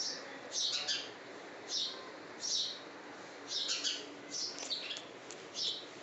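Rose-ringed parakeet giving short, high chirps, about one a second, in a steady run.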